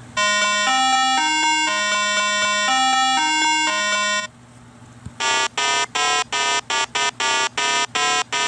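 A short synthesized electronic melody of stepping notes for about four seconds, then after a brief pause a run of short repeated electronic beeps, about three a second.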